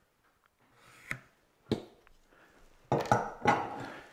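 Hand tools being put down on a wooden workbench: a couple of single knocks, then a louder clatter of several knocks about three seconds in, as a steel rule and pencil are laid on the bench.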